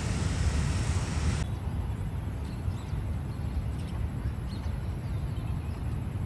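Outdoor street ambience dominated by wind rumbling on the microphone, with a broad hiss of traffic and city noise that drops away abruptly about a second and a half in at a scene cut. After that the wind rumble goes on with a few faint high chirps and ticks.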